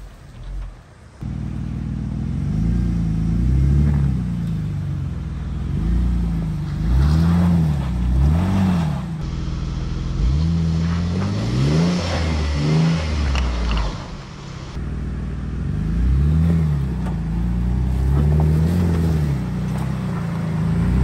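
2005 Jeep Liberty's engine revving up and down as it crawls over a rocky climb, the pitch rising and falling every second or two as the throttle is worked. A rushing, hissy noise rises over it for a few seconds about halfway through.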